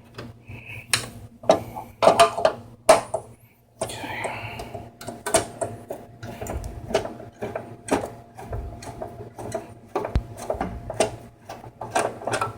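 Irregular clicks, knocks and a brief scrape of hands and a screwdriver working inside an open desktop PC case, loosening the screws and lifting off the CPU heatsink.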